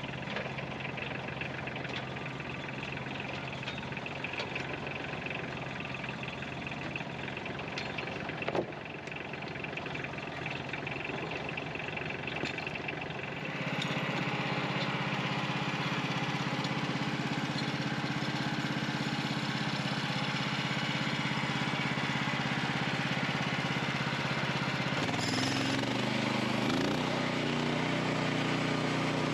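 Portable sawmill's engine running steadily. It gets louder about halfway through, as if taking a load or throttling up, and its pitch wavers briefly near the end. A single sharp knock comes about a third of the way in.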